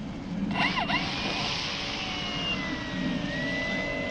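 Whine and rush of an RC jet's electric ducted fans (a 90 mm main fan and an 80 mm nacelle fan) as it flies by. The sound swells about a second in, and its whine glides down in pitch before holding steady.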